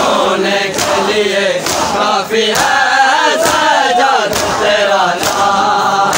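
Crowd of men chanting a noha lament in unison, with hands slapping on bare chests in matam, a sharp beat a little more often than once a second.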